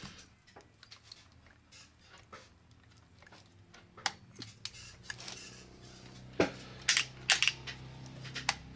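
Scattered metallic clicks and clinks from hands and tools working the parts of a stuck vintage sewing machine, with a sharp knock about six and a half seconds in and a quick run of clinks just after.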